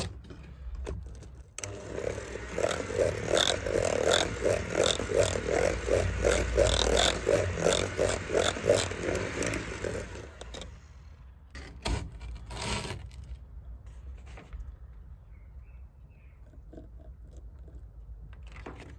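Old electric hand mixer running, its beaters whisking egg yolks and scraping around a plastic bowl in a steady pulse of about three strokes a second, as hot cream is beaten in a little at a time so the yolks do not go lumpy. It runs for about nine seconds and cuts off, followed by a couple of sharp knocks.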